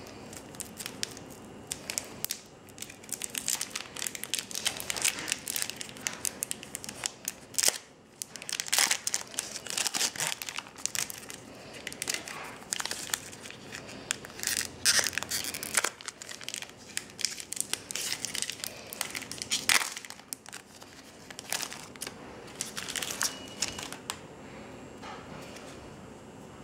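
Foil wrapper of a Pokémon booster pack crinkling and tearing as it is opened by hand, in many irregular crackles.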